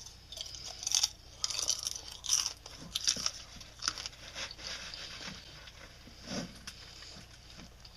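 Popcorn being chewed close to the microphone: a run of irregular crisp crunches, loudest in the first half, then softer chewing.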